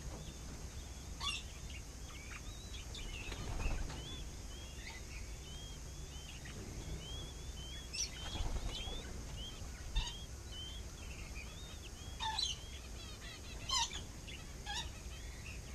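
King quail chicks peeping: a steady stream of short, high, arching peeps, with a handful of louder, sharper bird calls scattered through.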